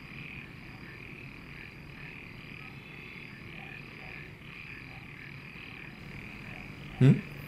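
Steady night-time chorus of frogs calling, a faint high pulsing that repeats a few times a second. About seven seconds in, a short loud sound cuts across it.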